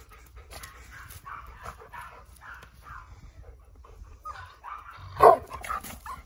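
An excited Cavalier King Charles Spaniel puppy making a run of short, high-pitched whines and yips in rough play, the cat-like cries it gives at the peak of excitement. One much louder cry comes about five seconds in.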